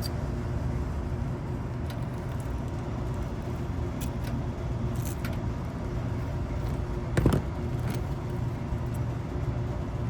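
Steady low mechanical drone, with two short sharp clicks about seven seconds in.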